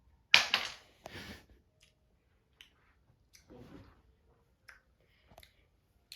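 Close-up mouth sounds of biting and chewing a cola-flavoured candy. Two louder noisy bites come near the start, followed by scattered small clicks and softer chewing.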